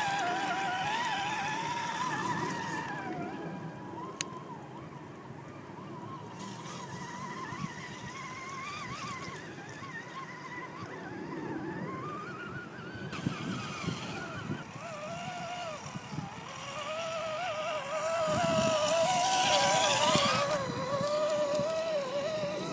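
Whine of an Axial SCX10 Deadbolt RC crawler's electric motor and drivetrain, its pitch rising and falling with the throttle. A louder rush of hiss comes about 18 to 20 seconds in.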